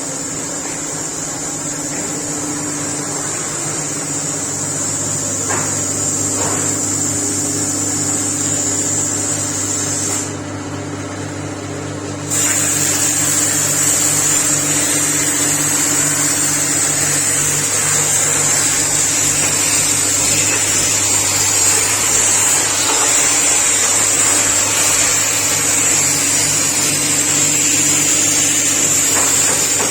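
CNC plasma cutting table and shop ventilation fan running: a steady low hum under a loud high hiss and whine. The hiss and whine cut out for about two seconds near the middle while the hum carries on, then come back louder.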